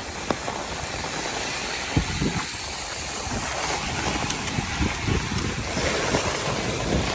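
Steady hiss of heavy rain, with low rumbles and wind buffets on the microphone from about two seconds in.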